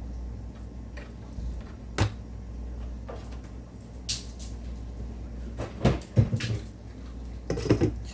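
Scattered kitchen knocks and clicks, like cupboard doors and things being handled: a sharp click about two seconds in, then clusters of knocks around six seconds and again near the end, over a low steady hum.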